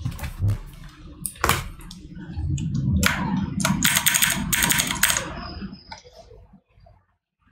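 Irregular clicks and clatter of a computer keyboard and mouse being worked, over a low steady rumble, dying away near the end.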